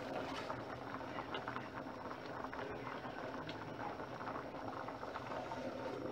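A pot of githeri with rice bubbling at a steady boil, a dense crackle of small pops. The metal lid is lifted off at the start and set back on near the end.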